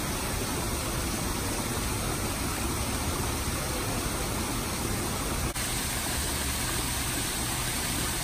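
Steady, even rushing noise with no distinct events and one faint tick about five and a half seconds in.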